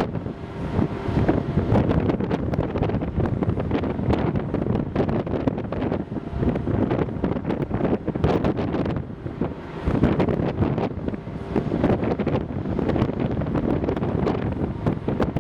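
Gusty wind buffeting the microphone, with a faint steady hum from the ferry's engines underneath.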